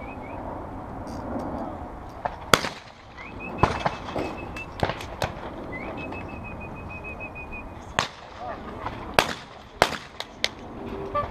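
Shotgun shots on a clay trap range: a loud sharp report about two and a half seconds in, then several more spread through the rest, some fainter, with a close pair near the end. A thin high steady tone sounds twice in the first half, for a second or two each.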